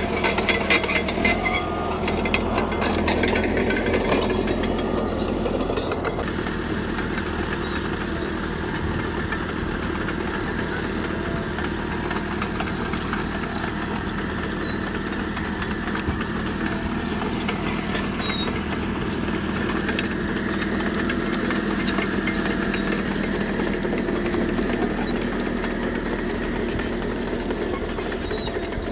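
Caterpillar D3K crawler bulldozer's diesel engine running steadily. Heavy clattering and knocking for the first several seconds, then a smoother drone.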